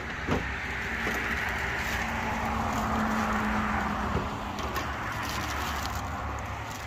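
A motor vehicle going by: a steady hiss with a low hum that swells toward the middle and then eases off, over a low rumble.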